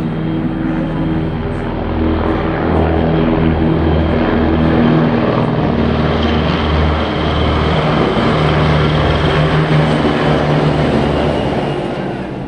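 Two military helicopters flying past in formation, a steady hum of rotors and turbines with a low pulsing throb. It grows louder a couple of seconds in and fades near the end as they pass.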